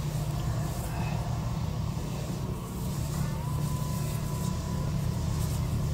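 Steady low background hum with no distinct foreground sound, and a faint thin tone about three seconds in.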